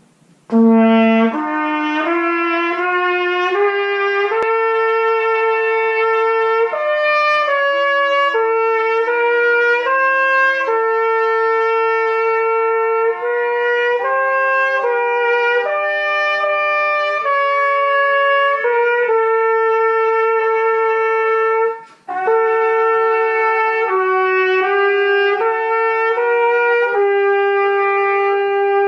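Solo trumpet playing a slow melody of held notes, opening on a low note, with a short break for breath about 21 seconds in.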